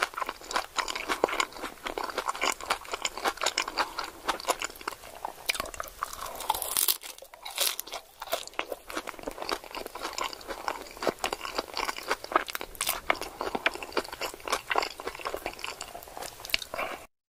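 Someone chewing crunchy food close to the microphone: dense, irregular crunching and crackling bites, thinning briefly about halfway through, then cutting off suddenly near the end.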